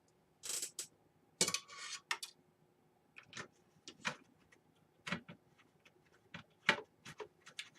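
Small metal clicks and clinks of loose computer screws being handled and picked out, with a couple of brief rustles in the first two seconds and then a run of light, irregular ticks.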